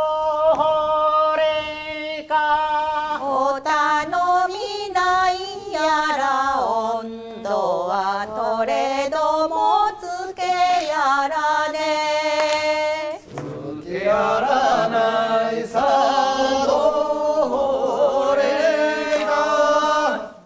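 Japanese folk song (min'yō) sung by voices holding long notes with wavering, ornamented turns. A different set of voices takes over about 13 seconds in.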